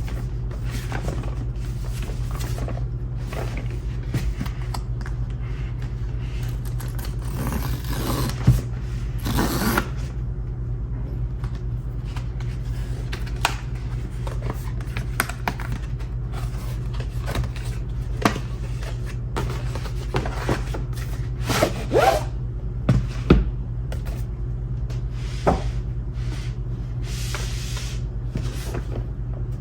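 Packaging being handled during an unboxing: cardboard and plastic scraping, rustling and clicking in short irregular bursts, a few of them louder, over a steady low hum.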